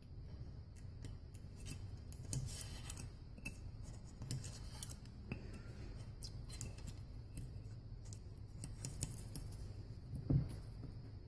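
Thin metal feeler gauge scraping and ticking around the edge of a Hydra-Matic transmission piston as it is pressed into its cast-iron housing, easing the piston seal past the housing's lip. There are many small, irregular ticks and scrapes, and one louder knock near the end.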